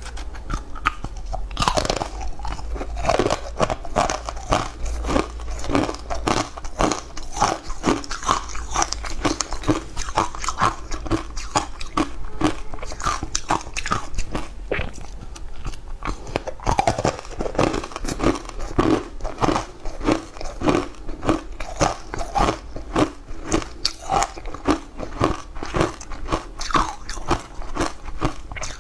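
Close-up eating sounds: a person biting and chewing mouthfuls of a crumbly brown food, with crisp crunches repeating a few times a second.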